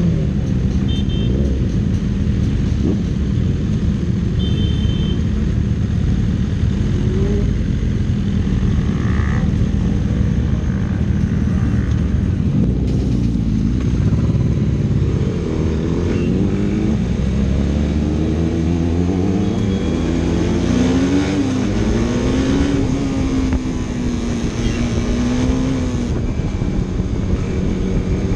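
Superbike engines running, with a steady low drone. In the second half the revs rise and fall repeatedly.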